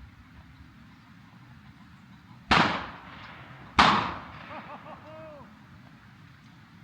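Two shotgun shots about a second and a quarter apart, each sharp crack trailing off briefly. A few faint high calls follow the second shot.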